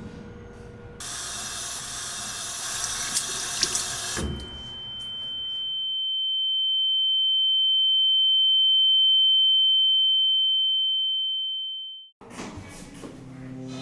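Running water rushing steadily, like a tap, with a few sharp clicks, for about three seconds. Then a single high, steady ringing tone swells over several seconds, fades and cuts off suddenly. Music with held notes starts near the end.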